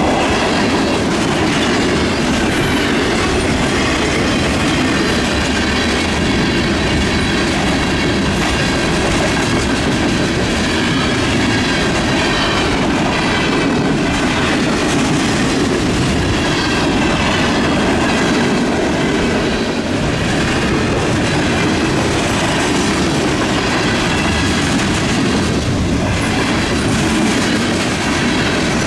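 Freight cars (covered hoppers, tank cars and boxcars) rolling past at speed: a steady rumble and clickety-clack of steel wheels over the rails.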